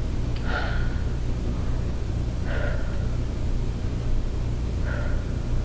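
A woman breathing audibly and slowly, three breaths about two seconds apart, as she breathes through sustained thumb pressure on a tight muscle at the base of her neck. A steady low hum runs underneath.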